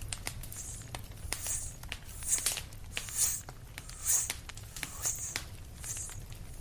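Grass being torn off by a grazing cow: a rhythmic ripping sound about once a second, with a campfire crackling faintly under it.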